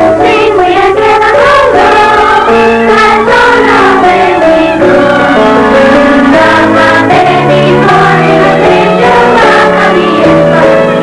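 A children's school choir singing a Christmas carol, with instrumental accompaniment under the voices.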